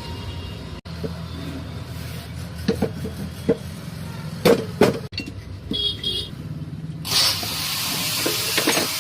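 Metal parts of a Bosch 11E demolition hammer knocking and clicking several times as they are handled on the bench, followed from about seven seconds in by a steady hiss.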